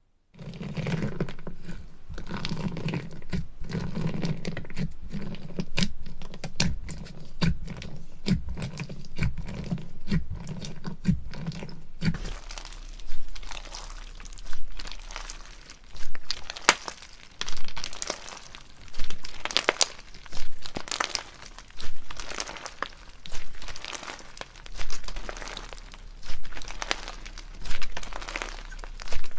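Slime being kneaded and pressed by hand, giving a dense run of small crackling pops. About twelve seconds in, it changes to slower rhythmic squeezes, one swell roughly every second, with crackles between them.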